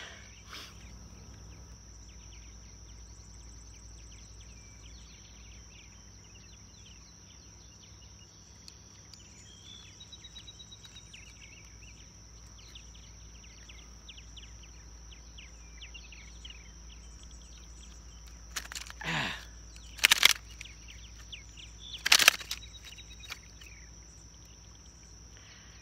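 Pond-side ambience: a steady high insect drone with many quick bird chirps over it. Late on, a short falling swish and two sharp clicks, the loudest sounds, come as the bass is handled and hung on a hand-held fish scale.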